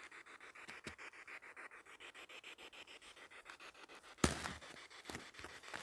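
Rapid, even pulsing static hiss, about nine pulses a second, from a small electronic device. A faint click about a second in and a sharp knock about four seconds in.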